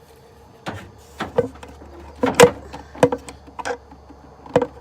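Irregular clinks and knocks of parts being handled under the hood, about nine in all, some with a short ringing tone, over a faint low hum.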